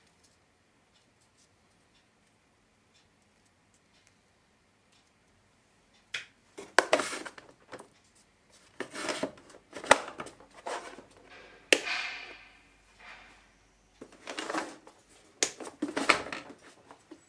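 Hand tools working a small piece on a bench: repeated scraping strokes of about a second each, with a few sharp clicks or knocks between them, after some seconds of near quiet.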